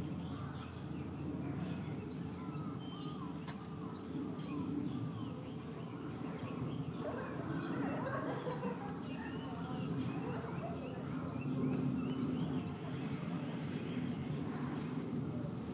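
A bird repeating a short, high, rising chirp about twice a second, with a pause in the middle of the run, over steady outdoor background murmur.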